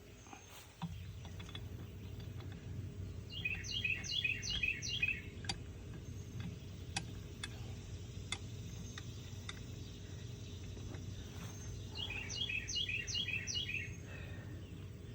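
A songbird singing twice, each phrase a quick run of five or six repeated high notes, the second about eight seconds after the first, over a steady low outdoor rumble. A few light clicks fall between the phrases.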